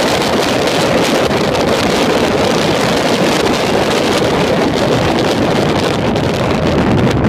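Steady, loud wind rush over the microphone of a Porsche Boxster driving at speed, with the car's running and road noise underneath.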